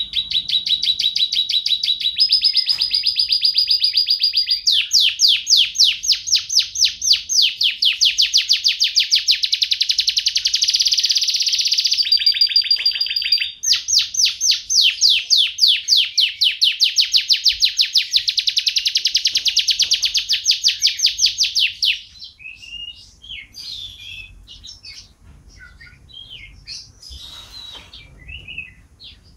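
Domestic canary singing, a loud run of rapid rolling trills that switch to a new trill type every few seconds. About three-quarters of the way through it breaks off into softer, scattered chirps.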